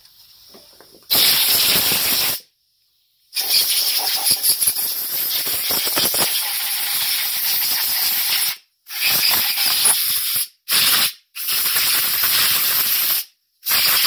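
Compressed-air blow gun blowing off freshly rinsed carburetors, a loud hiss switched on and off in bursts: one long blast of about five seconds among several short ones.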